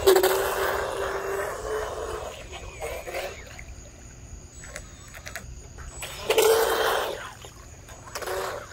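Small electric RC boat's motor and propeller whining in bursts of throttle, with water spray. The first burst lasts about two seconds, a second comes about six seconds in, and a brief blip near the end.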